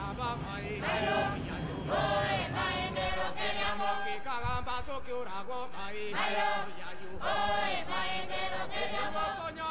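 Soundtrack music of a choir singing together, with long held notes that bend in pitch.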